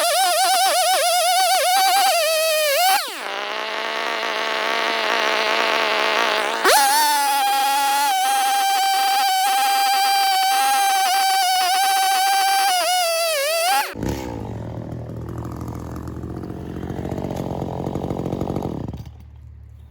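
Two-stroke chainsaw cutting through a red oak log at full throttle, its pitch sagging and wavering under load. About three seconds in it drops to a lower speed, then revs up sharply near seven seconds and cuts again until it stops abruptly about fourteen seconds in, leaving a quieter, lower noise for about five seconds.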